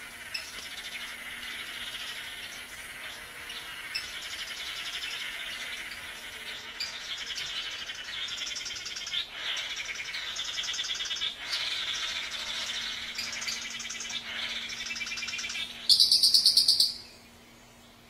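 Male blue manakins calling in chorus during their cooperative courtship dance: overlapping buzzing, rapidly pulsed calls, with a much louder buzzing burst near the end.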